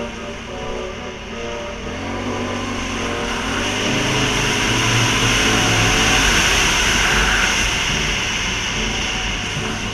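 An ATV engine running under throttle, swelling louder to a peak about six seconds in and then easing off.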